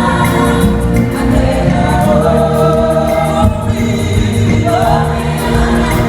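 A gospel choir singing, several voices together, with steady low accompaniment underneath.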